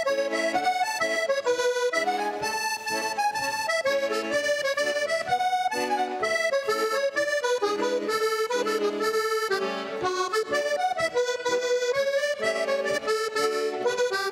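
Accordion playing a Scottish country dance tune: a running melody over a steady rhythm of chords.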